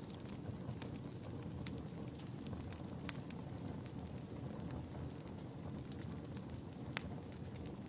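Wood fire burning in a fireplace: a steady low rumble of flames with scattered sharp crackles and pops. The loudest pops come about a second and a half, three seconds and seven seconds in.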